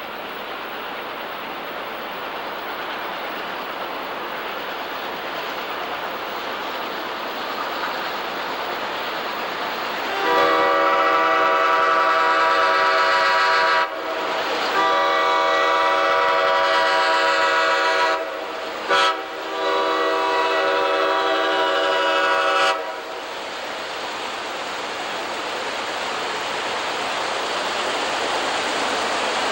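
Diesel locomotive air horn sounding a multi-note chord in the grade-crossing signal, long, long, short, long, over the rumble of the approaching train growing steadily louder.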